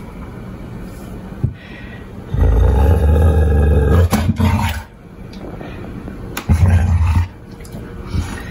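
Dog growling in two low, rumbling bouts, the first about two seconds long and a shorter one near the end, with a few clicks of paws on a wooden floor between them.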